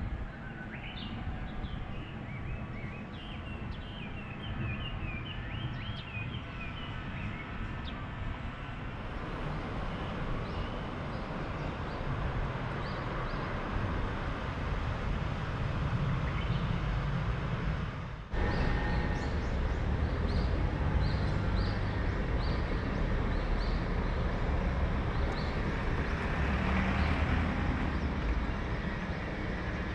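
Outdoor ambience: small birds chirping over a steady low rumble, which cuts briefly about 18 seconds in and comes back louder, with a bird giving short repeated calls.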